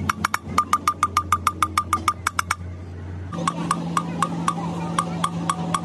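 Poppet valve being hand-lapped into its seat in an aluminium cylinder head with a suction-cup lapping stick. The metal valve strikes its seat in a fast run of sharp, ringing taps, about six a second. The taps break off for a moment past the middle, then resume over a steady low hum.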